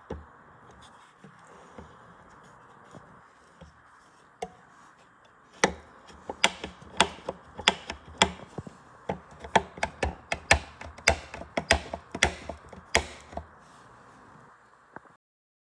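Elite Suito direct-drive smart trainer knocking sharply, about two knocks a second for several seconds, over a steady faint hiss.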